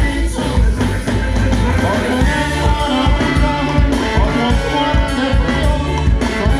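Live band playing an upbeat rock and roll song, with bass, drums and a sustained melody line, likely with singing.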